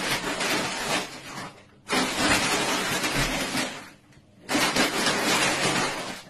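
Large woven plastic shopping bag rustling and crinkling as a small pet moves about inside it, in three long stretches with short breaks about two and four seconds in.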